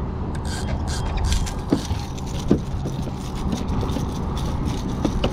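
A freshly caught small spotted bay bass being handled at a fishing kayak: splashing and flapping with light metallic rattling of the lure and hooks, over a steady low rumble of wind on the microphone. A few short squeaks come about two seconds in.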